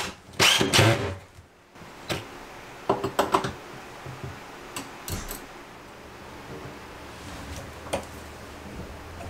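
Cordless drill running in a short burst as it drives a mounting screw, then a series of light clicks and knocks as the metal toilet paper holder is fitted onto its bracket by hand.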